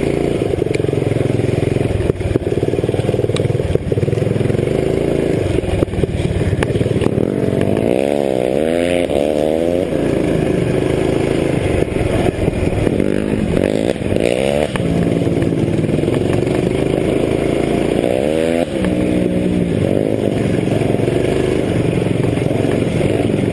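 Motorcycle engine heard from onboard while riding, running steadily under throttle. Its pitch swings up and down quickly several times: around a third of the way in, again just after halfway, and near the three-quarter mark, as the rider works the throttle.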